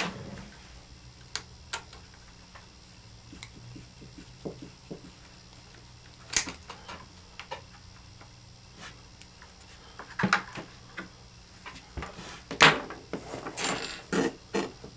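Small plastic and metal parts and hand tools clicking and clacking as an RC truck's rear axle carrier and wheel hub are handled and fitted, with sparse light taps at first and a busier run of clatter in the last few seconds.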